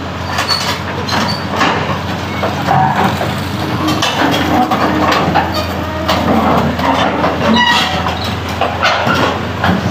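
Steel tracks of a Hitachi Zaxis excavator clanking and knocking irregularly as it crawls up onto a truck's deck, over the steady run of its diesel engine.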